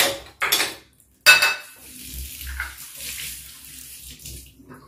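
Kitchen tap running into a sink, with a few sharp clatters of kitchenware in the first second and a half; the water hiss then runs steadily and stops near the end.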